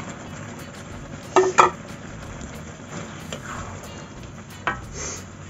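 A spatula stirring and knocking against a wok as rice vermicelli is worked into a simmering soy-sauce gravy, over a steady low sizzle. There are two sharp clanks about a second and a half in and another near the end.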